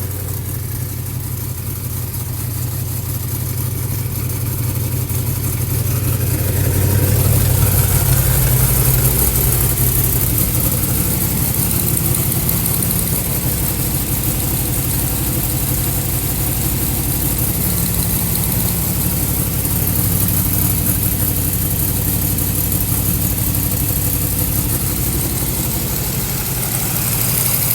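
1972 Camaro Z28's small-block V8 running at a steady idle, getting louder around six to nine seconds in and then holding steady.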